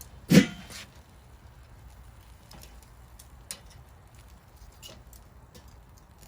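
Metal tongs clanking against a charcoal grill's grate while chicken legs are turned over: one loud clank about half a second in, then a few faint clicks.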